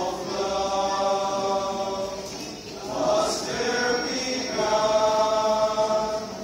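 Mixed choir of men's and women's voices singing long held chords: one phrase, a short breath about two and a half seconds in, then a second phrase.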